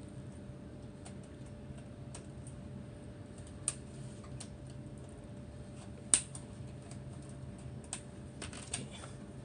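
Irregular small plastic clicks and taps as an LCD monitor's control-button keys and housing parts are handled and fitted, the sharpest about six seconds in, over a steady low hum.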